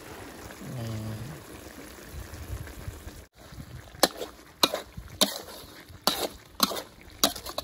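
A spatula scraping and clacking against a metal wok while stirring, one stroke about every half second from about four seconds in. Before that there is only a soft sizzle from the pan and a brief voice.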